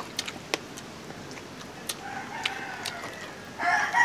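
Rooster crowing: a faint, long crow about halfway through, then a louder crow starting near the end.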